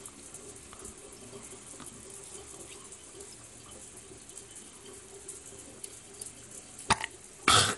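Oral irrigator (water pick) running with a faint steady hum while its water jet sprays in the mouth. About seven seconds in there is a sharp click, then a short loud burst of noise near the end.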